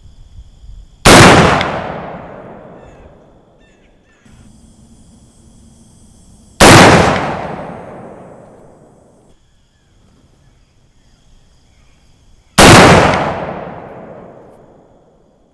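Three shots from a .50 calibre Lyman Plains Pistol, a single-shot black-powder percussion pistol, fired about five to six seconds apart. Each shot is very loud and trails off over two to three seconds.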